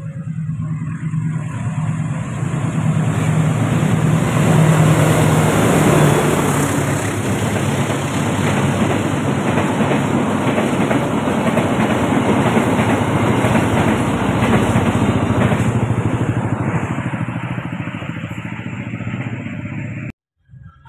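Argo Parahyangan diesel-hauled passenger train passing close by: a loud rumble with a low hum, loudest about five seconds in, then the steady rolling noise of the coaches on the rails, easing slightly before cutting off abruptly near the end.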